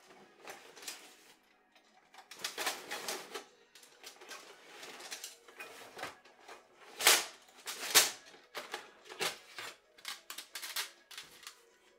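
Thin titanium panels of a folding tent stove being handled and unfolded: irregular metallic clicks, clinks and rattles, with two louder clanks about seven and eight seconds in.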